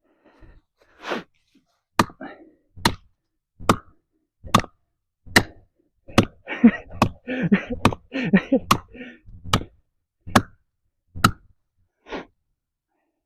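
About a dozen sharp knocks at an even pace, a little more than one a second, with a person's voice in among them in the middle.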